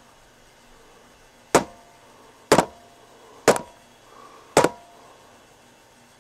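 Four sharp knocks, evenly spaced about a second apart, each with a brief ring after it.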